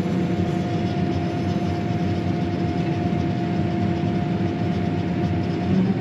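John Deere S670 combine harvester running, heard from inside the cab: a steady mechanical drone with several held hum tones. One of the higher tones cuts off near the end.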